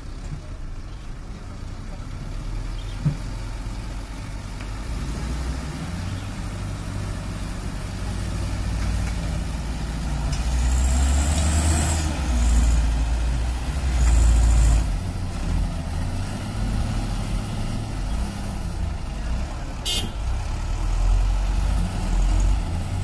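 Heavy diesel engines of a wheel loader and a mud-bogged Mitsubishi Canter truck loaded with oil palm fruit, both working hard as the loader pushes the truck; the rumble grows louder about halfway through, with two bursts of hissing. A single sharp click comes near the end.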